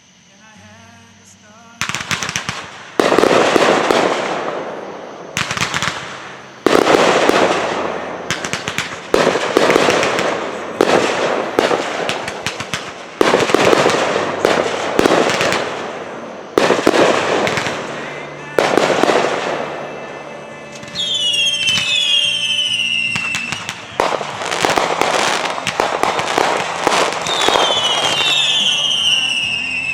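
Fireworks display: after a quiet couple of seconds, a run of loud aerial shell bursts goes off, one every second or two, each trailing off in crackle. Twice, about two-thirds of the way through and near the end, whistling fireworks add tones that fall in pitch.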